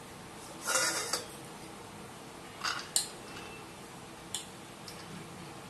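A steel spoon scraping and clinking against a stainless steel bowl and plate while chaat is served out: one longer scrape about a second in, then a few short clinks.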